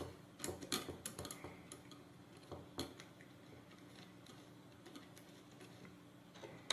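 Light clicks and taps of small metal bolts and plastic parts being handled and set loosely in place on a robot car kit's shelf. The clicks are bunched in the first three seconds, with one more near the end.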